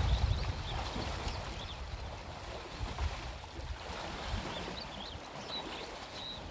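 Water sloshing and splashing around an African elephant wading and swimming through a waterhole, over a low rumble, with small birds chirping now and then.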